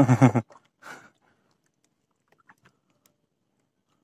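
A man's short spoken word at the start, then a few faint clicks and taps.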